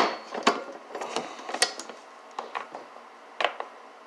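Irregular metal clicks and knocks of tools and nut-and-bolt hardware as a bolted mount bracket is worked loose, about half a dozen sharp ticks spread over the few seconds.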